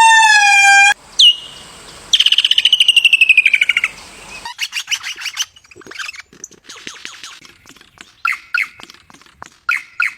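A series of bird calls: a drawn-out pitched call for about the first second, a rapid pulsing call lasting about two seconds, then scattered short chirps.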